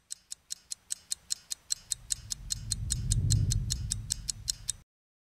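Rapid clock ticking, about five crisp ticks a second, under a low rumble that swells from about two seconds in and fades again. Both cut off abruptly near the end.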